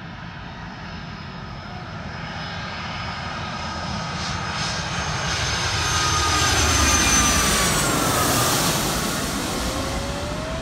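Twin-engine jet airliner on final approach passing low overhead with its landing gear down. The engine noise builds to a peak about seven seconds in and then fades, and its high engine tones drop in pitch as it goes by.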